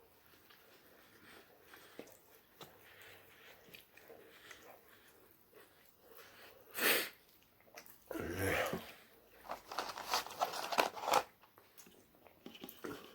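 A person eating close to the microphone: faint chewing at first, then a short sharp louder sound about seven seconds in, a brief low voiced sound a second later, and a run of crunching and crackling near the end.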